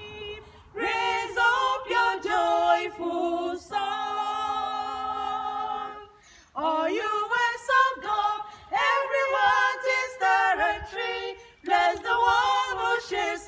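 Three women's voices singing a hymn of praise together without accompaniment. About four seconds in they hold one long note, break off briefly just after six seconds, then carry on singing.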